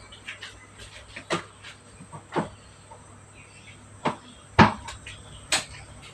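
Five sharp knocks and clicks, spaced unevenly with the loudest about four and a half seconds in, and smaller ticks between, over a low steady hum.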